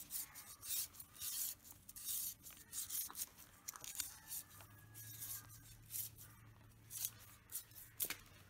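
Knife scraping and cutting on a snakehead fish: short, irregular rasping strokes, about one or two a second. A faint low hum comes in about halfway through.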